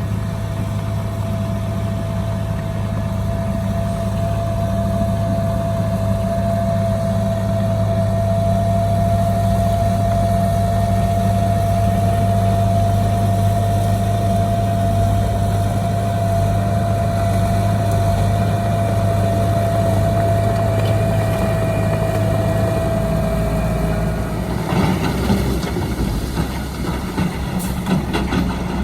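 Heavy diesel engine of earthmoving machinery running steadily, with a steady high whine over it. About 24 seconds in the whine stops and the sound turns rougher, with a few knocks.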